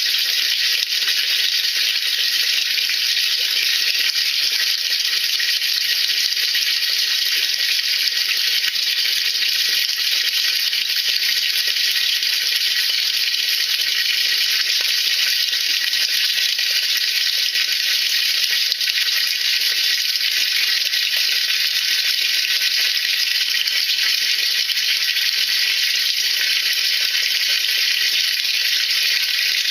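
Sodium percarbonate solution fizzing in a washing-machine tub: a steady, dense crackle of countless tiny bubbles bursting, with no motor heard.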